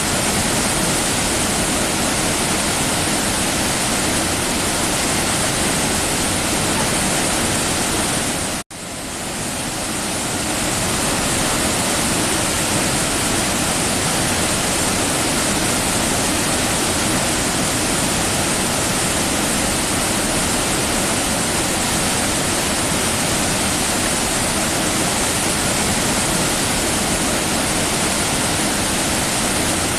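Waterfall rushing steadily, a dense even roar of falling water. About nine seconds in it cuts out for an instant, then swells back over a second or so.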